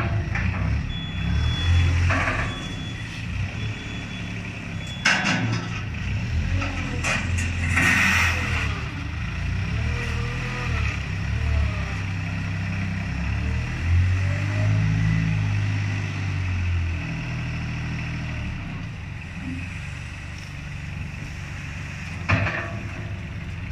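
DY25 mini wheel loader at work: its engine runs continuously, revving up and down as the bucket is filled, raised and dumped. A few sharp knocks and scraping bursts come from the bucket and load. A short high beep, typical of a reversing alarm, repeats near the start and again near the end.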